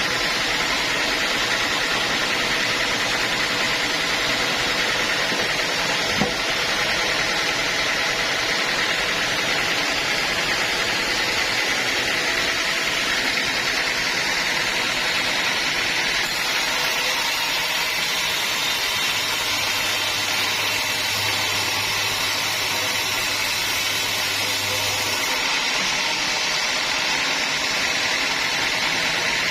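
Sawmill machinery running steadily: a constant high whine over a broad mechanical noise, with a single knock about six seconds in and a deeper hum that joins for several seconds in the second half.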